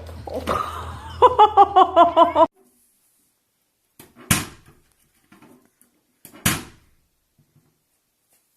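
A quick run of about eight warbling pitched notes that stops abruptly. Then, after a short silence, two sharp knocks about two seconds apart, with lighter clicks around them.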